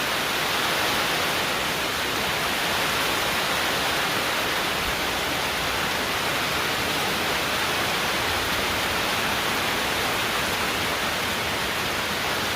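Heavy rain pouring down, a dense steady hiss with no let-up.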